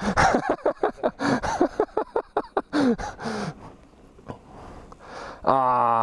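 A person's voice: short breathy vocal sounds and unclear talk, then a quieter gap, then a man's voice again near the end. No motorcycle engine running is heard.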